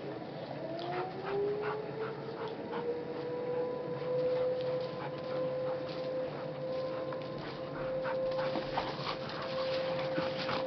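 Two dogs wrestling in snow, panting with short sharp yips and scuffles. Behind them a long steady tone climbs in pitch over the first couple of seconds, then holds level.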